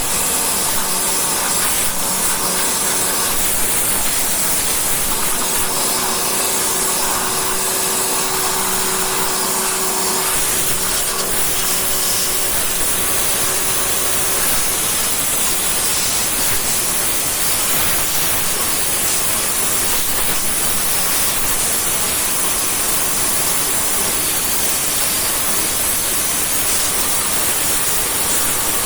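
High-pressure jet cleaner spraying water in a steady, loud hiss, with a faint hum under it for about the first ten seconds.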